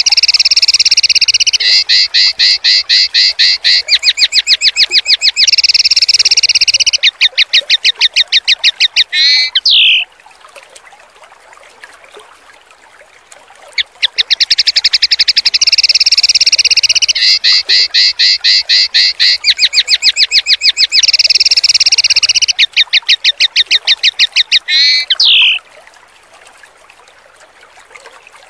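Songbird training recording of loud, rapid-fire repeated 'shot' notes (tembakan), a harsh trill about ten notes a second that changes pace in blocks and ends in one quick swept note. The phrase runs for about ten seconds, stops, and starts again about fourteen seconds in, with faint flowing water underneath in the pause.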